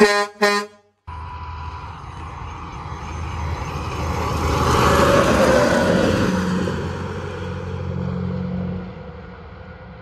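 Two short blasts of a truck's air horn, then a truck driving past. Its engine and road noise swell to a peak about five seconds in and fade away.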